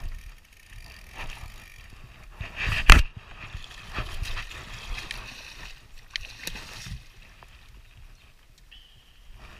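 River water splashing and churning as a large hooked salmon thrashes at the landing net, with one loud sudden splash or knock about three seconds in and several smaller splashes after it.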